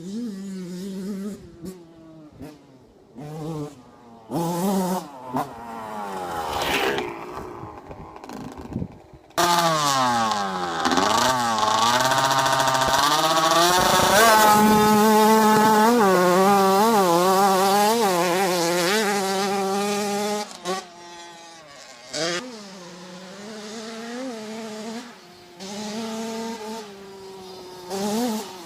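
Small motorcycle engine with a buzzing note, idling unevenly, then revved for about ten seconds with the pitch sweeping down and up, and settling back to a wavering idle.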